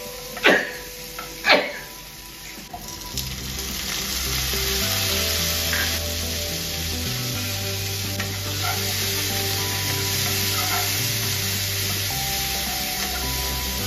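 Chopped onions and tomatoes frying in oil in a kadai, a steady sizzle that grows louder after the first few seconds while a metal spoon stirs them. Near the start the spoon strikes the pan twice, two loud clatters about a second apart.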